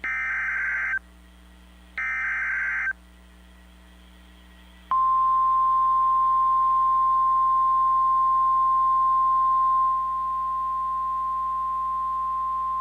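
NOAA Weather Radio Emergency Alert System activation for a special marine warning. Two one-second SAME digital header bursts come about two seconds apart, the last of a set of three. About five seconds in, the steady single-pitch 1050 Hz warning alarm tone starts, dropping slightly in level about ten seconds in.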